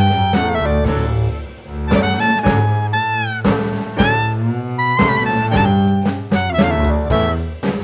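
Background jazz music: a saxophone-like horn melody with pitch slides over walking bass and drums.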